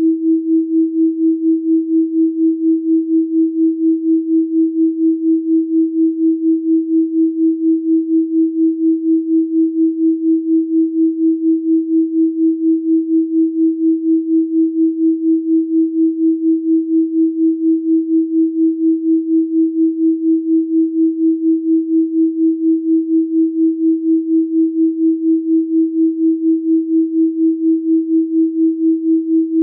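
A steady electronic pure tone at 324 Hz, its loudness pulsing evenly several times a second.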